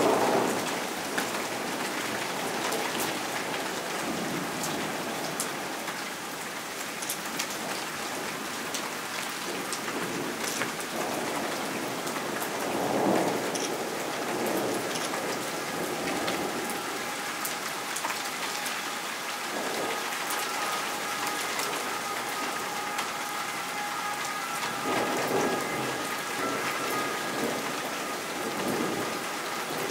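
Steady rain falling in a violent thunderstorm. A rumble of thunder dies away at the very start, another rolls in about 13 seconds in, and more follow near the end.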